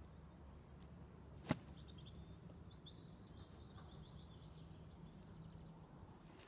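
A single sharp strike of a golf club into bunker sand, about a second and a half in, as a downhill-lie bunker shot is played out of the sand.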